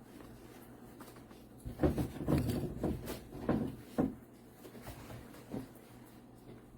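Handling noises from a felt puzzle mat being rolled up by hand: a short run of soft bumps and rubbing, with four or so louder knocks, lasting about two seconds.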